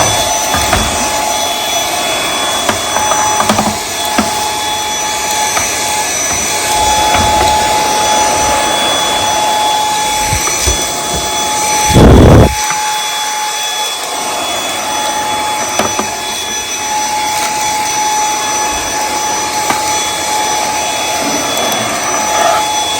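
Dyson V8 Extra cordless handheld vacuum switching on and running steadily with its dusting brush, a high motor whine over a strong rush of airflow, while dusting surfaces. About halfway through there is a brief, loud bump.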